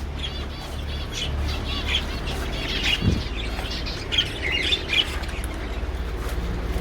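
Small caged birds chirping and squawking in a flurry of short, repeated calls, over a steady low hum.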